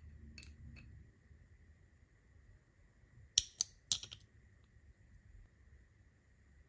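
Small painted metal parts of an old pump oiler clicking together as the lever, knob and threaded cap are fitted by hand: a few faint clicks near the start, then three sharp clicks a little past the middle.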